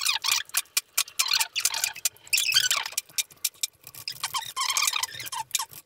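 Sped-up time-lapse workshop audio: high-pitched squeaky chatter of voices played fast, over rapid clicks and clinks as lifters and cam followers are pulled from an SDV6 cylinder head.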